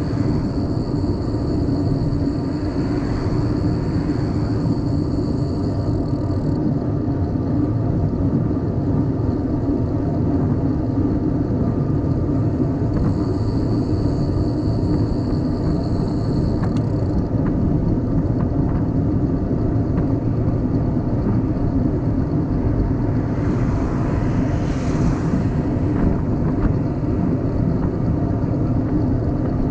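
Steady, loud low rumble of wind and road noise while riding a bicycle. A thin high steady tone sounds for the first few seconds and again briefly about halfway, and a swell of hiss comes near the end.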